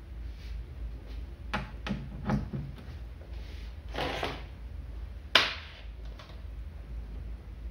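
Banana-plug patch leads being handled and pushed into the jacks of a relay trainer panel: a few light clicks and rattles, a brief rustle, then one sharp snap a little over five seconds in. A low steady hum runs underneath.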